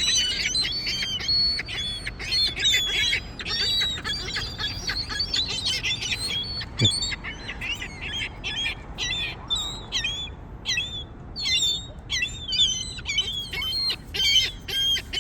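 A flock of gulls calling: many short overlapping cries and squawks, dense at first and thinning out after the middle.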